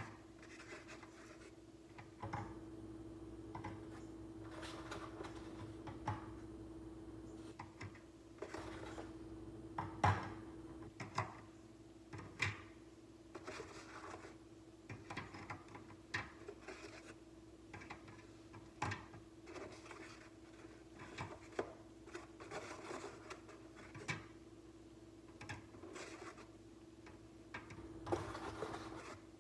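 Eggs being set one by one into a wire egg basket: irregular light clicks and knocks of shell on shell and against the wire, with soft rubbing in between, over a faint steady hum.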